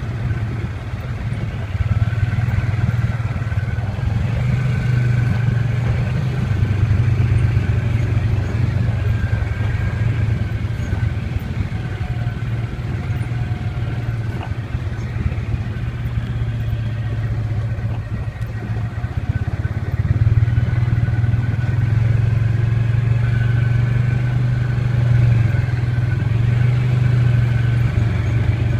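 Off-road vehicle engine running steadily at trail speed, heard from on board the machine. The engine grows louder about two seconds in, and again about two-thirds of the way through, as the throttle opens.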